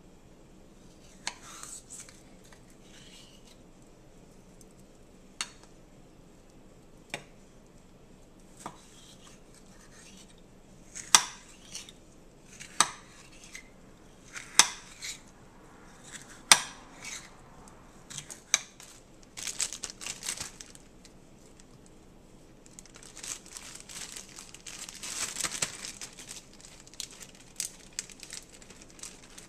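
Kitchen knife knocking on a stone cutting board while a red bell pepper is sliced, single sharp clacks a second or two apart. Later, a few seconds of plastic bag crinkling.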